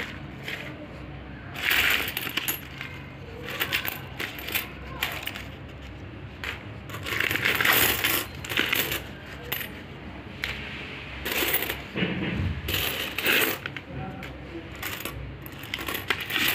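Irregular clinking and rattling of small hard objects, coming in short bursts with brief pauses between them.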